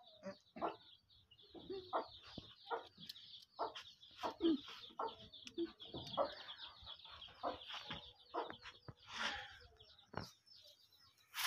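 Chickens clucking in short, irregular calls over steady high-pitched chirping of small birds.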